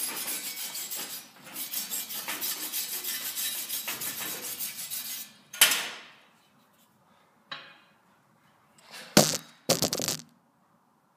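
Wire brush scrubbing forged steel pipe in rapid back-and-forth strokes for about five seconds, then stopping. Scattered sharp metallic clanks follow, the loudest two near the end.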